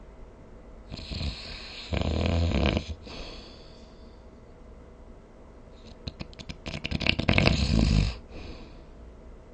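A sleeping person snoring, two breaths. The first comes about a second in and turns into a low buzzing snore around two seconds. The second is a rattling, fluttering snore from about six to eight seconds in, the loudest of the two.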